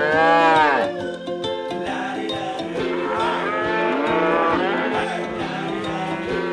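A cow mooing: one long, loud moo that rises and falls at the start, then more mooing in the middle, over steady background music.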